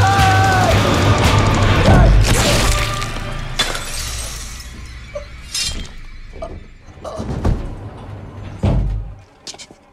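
Film soundtrack: dramatic music with a loud shattering crash about two seconds in and a second sharp hit soon after, then a few fainter thuds as the sound dies away.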